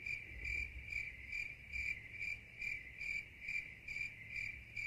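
Crickets sound effect standing in for silence: a cricket chirping steadily, about two and a half chirps a second, over a faint low hum.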